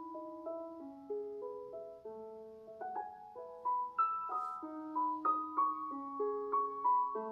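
Background piano music: a gentle melody of struck notes, each ringing on, at an unhurried pace.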